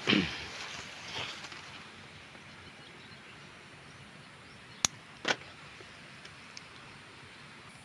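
Two sharp snips about half a second apart, about five seconds in: hand pruning shears cutting a yardlong bean pod from its vine. Just before them comes a loud brushing swish at the start and a weaker one a second later.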